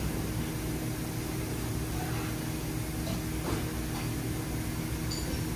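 Steady mechanical hum of workshop equipment, with a few faint clicks of metal engine parts being handled on the short block.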